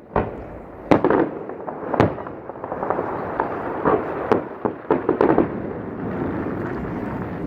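Aerial fireworks shells bursting in a rapid, irregular series of sharp bangs, each trailing off in a rumbling echo, with crackling between them. The bangs come thickest around the middle.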